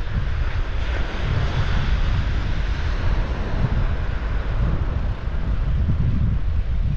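Wind buffeting the microphone of a GoPro action camera on a moving bicycle: a dense low rumble under a steady rushing hiss that swells slightly between about one and three seconds in.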